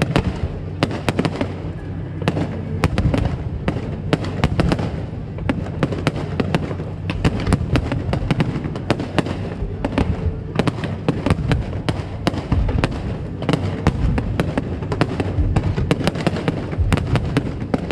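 Aerial fireworks display going off in rapid succession: many sharp bangs and crackles, several every second, over a continuous low rumble of booms.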